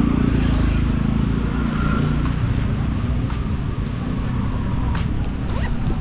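Steady street traffic rumble from passing cars and motorcycles, with a few faint clicks.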